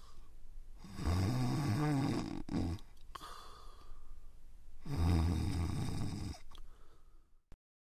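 Snoring: two long snores about four seconds apart, with fainter breathing between them, then a short click near the end.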